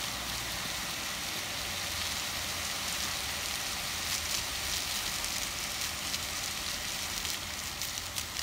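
Water fountain jets splashing down into the basin: a steady rushing hiss, with crackly splatters joining in from about halfway through.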